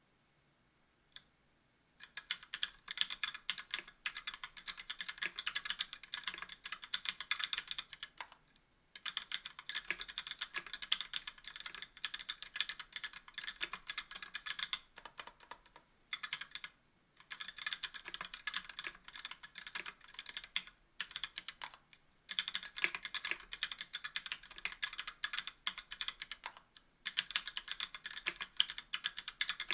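Fast typing on a KBDfans Tofu 60% aluminum keyboard with an aluminum plate, stock Gateron Black linear switches and GMK doubleshot ABS keycaps: a single click and two seconds of quiet, then dense runs of key clacks lasting several seconds each, broken by brief pauses.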